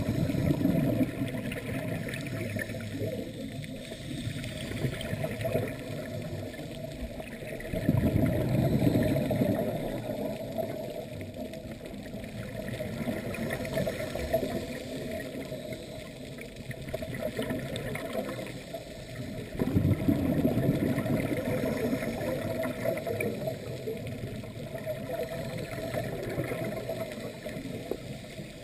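Underwater sound of a scuba diver's exhaled bubbles gurgling and rushing up from the regulator in swells, strongest about 8 seconds in and again about 20 seconds in, over a steady muffled water hiss.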